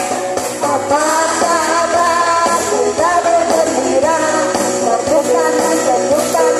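Electronic keyboard playing a lively song with a steady beat, and a woman singing the melody into a microphone over it.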